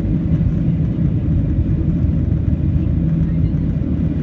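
Steady cabin noise inside a Boeing 737-700 climbing after takeoff: an even low rumble of airflow and the CFM56-7B turbofan engines, heard from a window seat over the wing.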